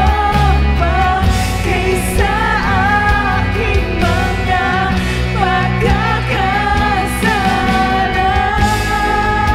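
Live worship band playing a Tagalog worship song: women's voices singing the melody over drums, electric bass and acoustic guitar.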